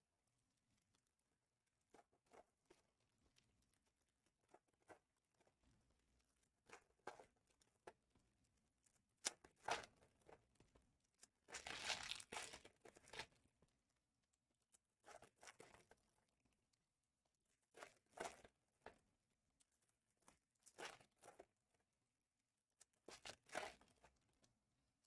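Foil trading-card pack wrappers crinkling and tearing as they are handled, in short bursts every couple of seconds, the longest about twelve seconds in.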